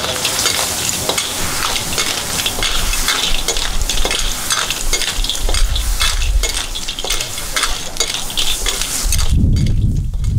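Lala clams stir-frying in a wok: a steady sizzle, with the metal wok ladle scraping and clacking against the wok and the clam shells. Near the end the sizzle drops away and a low rumble takes over.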